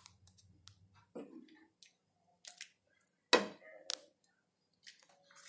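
A black plastic ladle scooping thick curry out of a non-stick frying pan into a glass serving bowl: scattered light clicks, then two sharper knocks a little over three seconds in.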